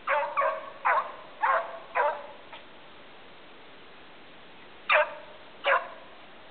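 Dog barking: five quick barks in the first two seconds, then two more about a second apart near the end, each bark dropping in pitch.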